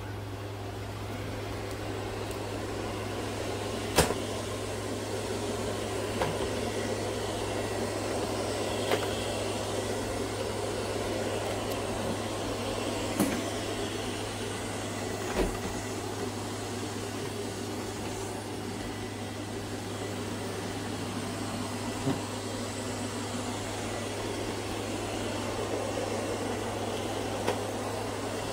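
Steady low mechanical hum, broken by a handful of short, sharp clicks and knocks spread through it.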